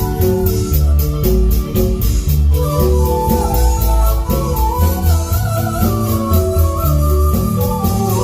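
Marimba group playing Latin dance music: mallet and keyboard melody over a heavy bass line and drums keeping a steady beat.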